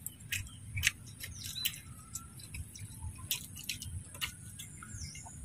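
Someone eating crispy fried duck: faint, irregular small crunches and clicks.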